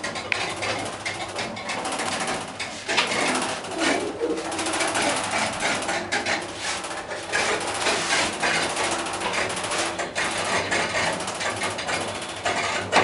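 Otis passenger elevator car travelling upward, with a continuous clattering rattle of dense clicks and knocks from the car and its shaft.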